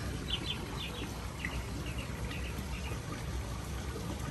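Koi pond water: a steady wash of trickling, bubbling water with a scatter of short high chirps in small groups.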